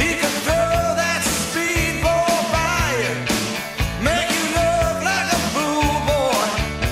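Rock song with singing over drums, bass and guitar.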